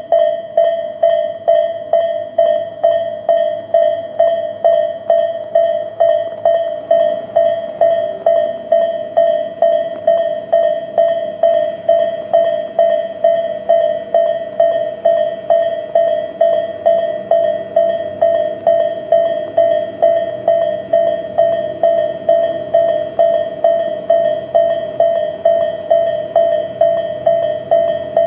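Japanese railway level-crossing alarm, Tobu's electronic 'sound A' bell, ringing an even, pitched strike a little over two times a second without a break.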